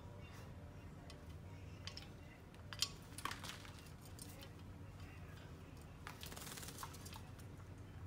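Quaker parrot bathing in a water bowl: faint splashing and wing flutters, with a few sharp clinks a little under halfway and a longer spell of splashing about three-quarters of the way in.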